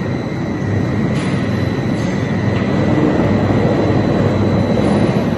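Ball mill grinding slag: a loud, steady rumble of the turning drum and its tumbling charge, with a constant high whine over it.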